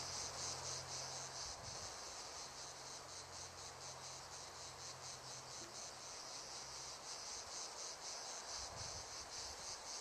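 Crickets chirping in a continuous, fast-pulsing trill, with a faint low hum underneath that fades out after about seven seconds.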